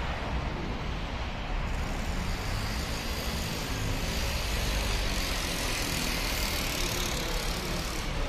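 Steady low rumble of engines with a rushing hiss that swells about two seconds in and eases near the end: jet aircraft and road traffic noise.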